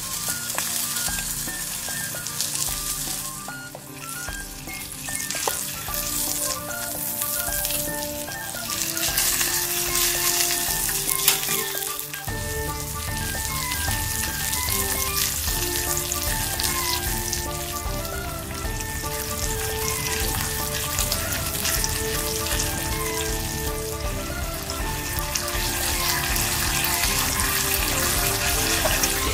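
Background music, a melody of short notes with a bass line coming in about twelve seconds in, over a steady crackling hiss.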